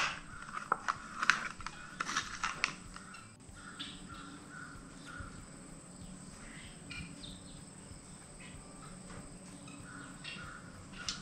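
Caulking gun being worked: a handful of sharp ratchet-like clicks in the first few seconds, then faint, scattered short squeaks.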